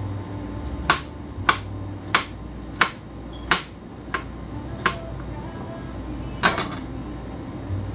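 Kitchen knife chopping vegetables on a cutting board: single sharp knocks about every two-thirds of a second, with a louder double knock near the end.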